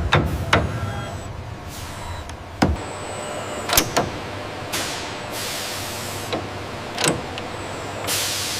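Assembly machinery working: a low hum that stops about two and a half seconds in, a string of sharp metallic clicks and clunks, and several rushes of hiss.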